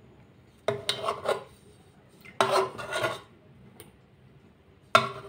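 A metal spoon scraping and rubbing against a bowl in three separate strokes, each under a second long, as soft dumplings and yogurt are scooped out.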